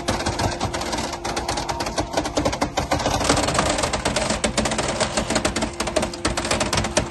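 Automatic metal baler at work on aluminium extrusions: dense, rapid, irregular clattering of metal pieces over a steady machine hum.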